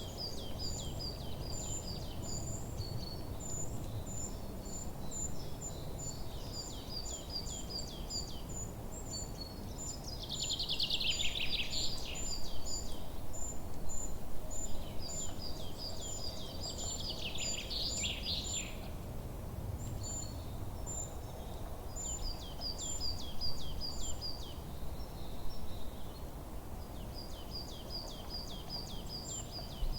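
Several forest birds singing: repeated rapid runs of high, thin chirps, with two louder, fuller songs that fall in pitch near the middle. All of it sits over a steady low background rumble.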